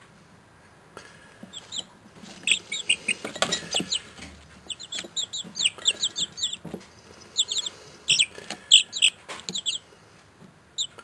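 Young chicks peeping in quick series of short, high, downward-sliding peeps, with rustling and tapping as they peck in wood shavings. The peeping starts a second or two in and dies away near the end.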